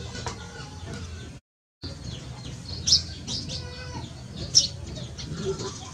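Birds chirping outdoors, with two loud, sharp chirps about three and four and a half seconds in, over a steady low background. The sound cuts out completely for a moment about a second and a half in.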